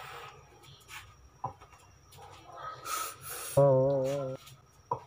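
Breathy hissing as vapour is drawn from a vape and puffed out. A short, wavering pitched tone cuts in about three and a half seconds in and stops abruptly under a second later; it is the loudest sound.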